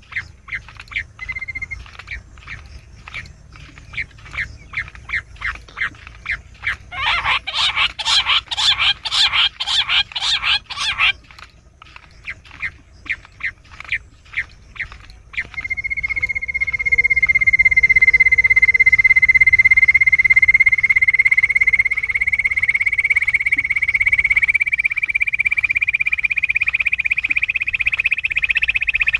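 Jungle bush quail calls played as a hunting lure. Sharp repeated notes, about two a second, quicken into a loud, rapid run and slow again. Then, about halfway in, one long unbroken whistle sets in and slowly rises in pitch.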